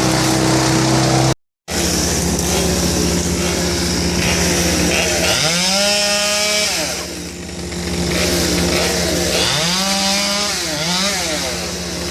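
A chainsaw running with a steady engine drone, revving up and falling back twice, about halfway through and again near the end.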